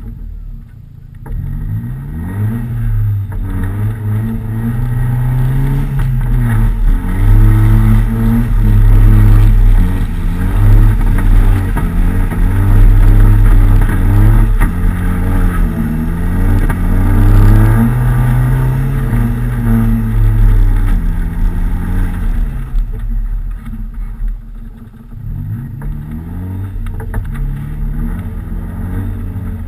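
Nissan 200SX engine being revved hard and eased off again and again while driving on snow, its pitch climbing and falling in repeated sweeps. It is heard from outside the car by the side mirror. It is loudest through the middle, drops back briefly near the end, then picks up again.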